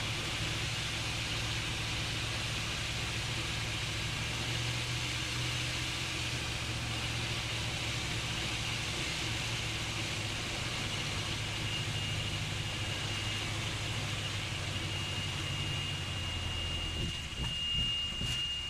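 Jodel DR1050 light aircraft engine running steadily with wind hiss, heard in the cockpit while landing. A thin, steady high tone fades in about two-thirds of the way through, and near the end the sound turns uneven and rumbling.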